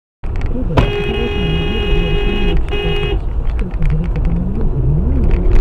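Car horn sounding, held for about two seconds and then given a second short blast, over steady engine and road noise heard from inside a moving car.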